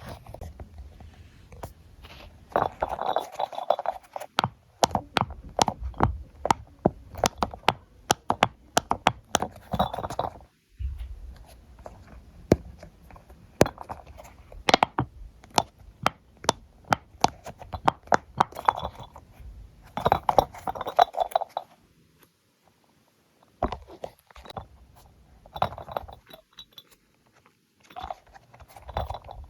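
Fidget toys being handled: many sharp clicks and crunching sounds in irregular bunches, with a brief lull about three-quarters of the way through.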